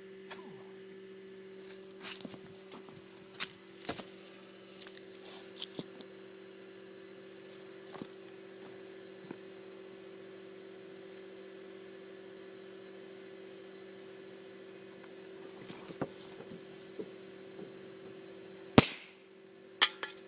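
Scattered clicks and handling rattles over a steady hum, then one sharp, loud crack near the end, followed by a smaller click about a second later.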